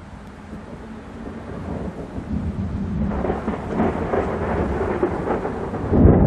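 Thunder rumbling and growing louder over several seconds, then a sudden loud thunderclap near the end as lightning strikes close by.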